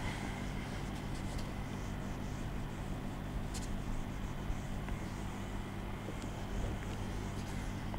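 A felt duster wiping a whiteboard in faint, soft swishes, over a steady low hum of room noise.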